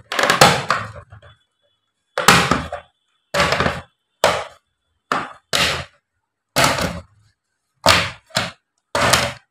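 Plastic front bezel of an AOC LED monitor being pried off by hand, its clips snapping free in about ten sharp cracks, roughly one every second.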